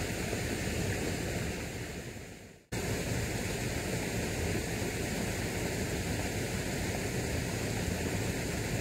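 Steady rushing background noise that fades out about two and a half seconds in, then cuts back in abruptly and runs on evenly.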